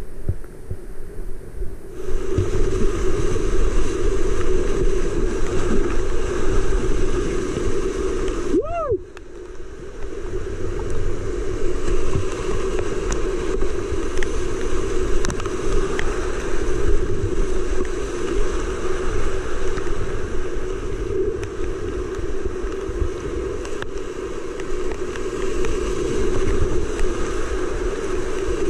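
Steady rushing of whitewater rapids around a kayak running down a high-water creek, with the odd splash. About nine seconds in, the sound dips and goes muffled for a moment before the rush returns.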